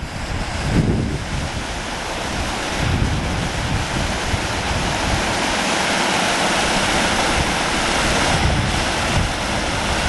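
Stream water rushing over rock in small cascades, a steady loud rush, with wind buffeting the microphone in gusts.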